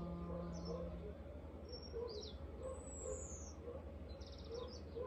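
Small birds chirping and trilling, with one high whistle sliding down in pitch near the middle. A woman's held chanted note fades out about a second in.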